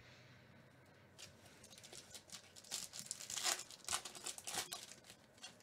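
A Topps foil trading-card pack wrapper being torn open by hand, crinkling in a run of short crackles that grow busiest and loudest in the second half.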